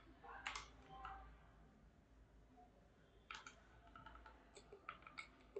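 Faint, scattered clicks of a computer keyboard and mouse, a few keystrokes at a time in irregular small clusters.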